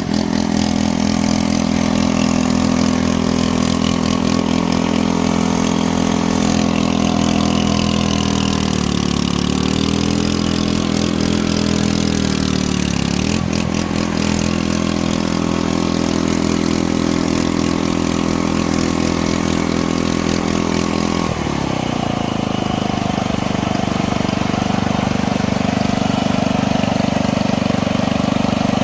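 An engine running steadily. Its pitch dips and comes back up twice between about 8 and 13 seconds in, then drops suddenly to a lower, steady running note about 21 seconds in.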